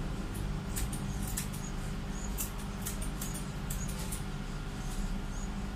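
Dog-grooming scissors trimming the fur of a Pomeranian's hind leg: short, irregular snips.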